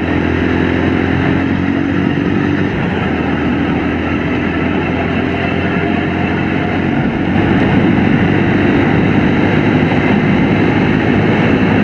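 Motorcycle engine pulling steadily in top gear as the bike accelerates from about 50 to 80 km/h, heard from the rider's seat, with rushing noise; it grows louder about seven seconds in.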